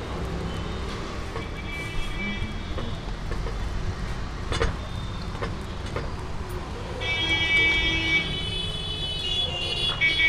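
Road traffic running steadily, with vehicle horns honking: one long horn about seven seconds in and another near the end. A couple of short metal clicks come around the middle.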